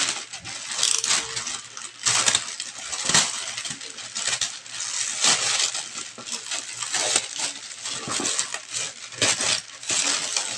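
Thin plastic courier bag crinkling and rustling as it is torn open and pulled off a cardboard box, with irregular sharp crackles.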